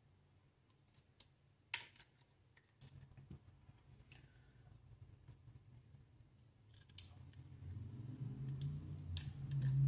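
Small metal parts of a Webley Junior air pistol clicking as its cocking arm is fitted back into place by hand. A few scattered sharp clicks, the loudest near the end, with handling rustle growing over the last few seconds.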